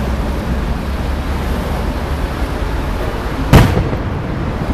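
A single aerial firework shell bursting with one loud, sharp bang about three and a half seconds in, over a steady low background rumble.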